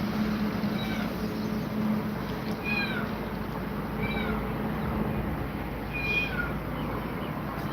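A cat meowing: four short, high-pitched meows spread a second or two apart, over a steady background hiss.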